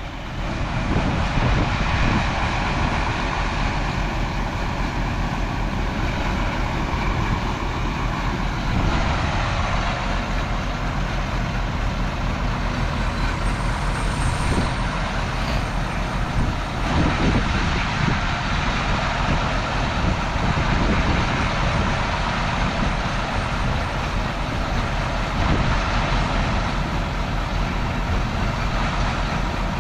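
Large truck engine running steadily.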